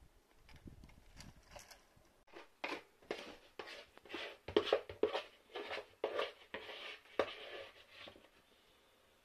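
A spoon scraping and knocking in a bowl and in baking tins as sticky bread dough is scooped and spooned into the tins: a run of short scrapes and knocks, about two a second, starting about two seconds in and stopping near the end.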